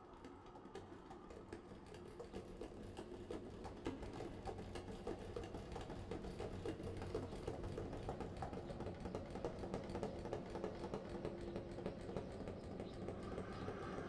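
Film soundtrack sound design fading in: a dense, rapid crackle of fine clicks over a low steady hum, growing louder throughout.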